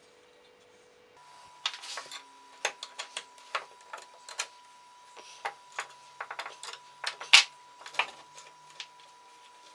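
Irregular sharp clicks and clacks of old Rolcut secateurs being handled and worked on, starting about a second in, with the loudest click about two-thirds of the way through.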